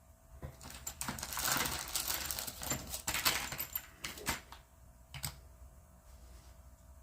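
A quick, dense clatter of light clicks and rustling, like small hard plastic objects being handled on a workbench, lasting about four seconds, then one sharper click a little after five seconds in.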